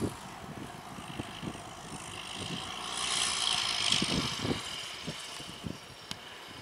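Belarus MTZ-1221 tractor's diesel engine running under load as it pulls a corn planter through the field, growing louder about halfway through as it comes closest, then easing off.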